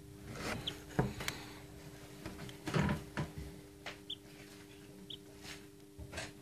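A few short, high peeps from a hatching chick inside a pipped chicken egg, among irregular clicks and knocks, the loudest nearly three seconds in, over a steady low hum.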